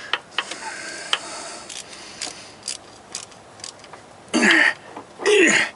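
Scattered light clicks and taps of hand tools and bolts as the timing cover bolts are worked on, about two a second. About four seconds in, two short vocal sounds from a person, much louder than the clicks.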